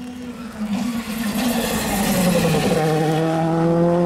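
Rally car approaching at speed on a tarmac stage, growing louder as it nears. From about three seconds in, its engine note holds strong and rises slightly in pitch.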